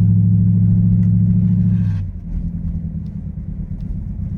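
Truck engine held at steady high revs with a loud drone while driving in snow, straining on the slippery road. About two seconds in the revs drop off, leaving a low rumble.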